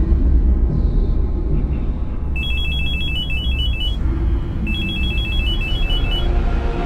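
Electronic telephone ringing: two rings of rapid two-note warbling trill, each about a second and a half long, starting a couple of seconds in, over a low, steady rumbling drone.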